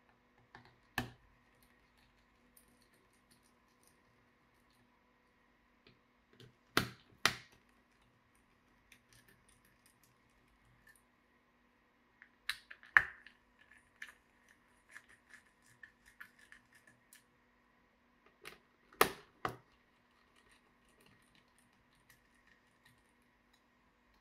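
Scattered sharp clicks and taps of laptop parts and tools being handled during disassembly. The loudest come as a pair about seven seconds in, then one about thirteen seconds in and one about nineteen seconds in, with lighter ticks between.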